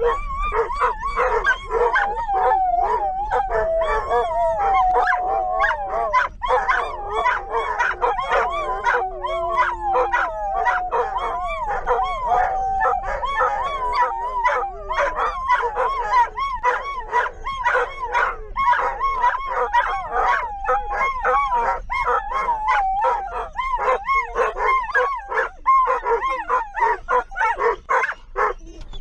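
Two German shorthaired pointers howling, whining and yipping without a break, their wavering cries overlapping inside a car. It is the excited noise they make on arriving for a walk.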